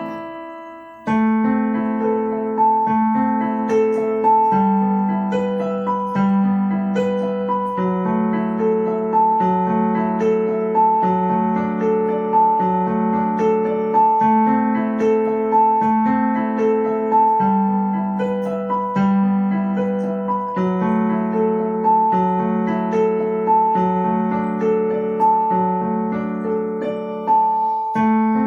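Piano playing a slow, repeating pattern of evenly paced notes over held bass notes, with a brief pause about a second in.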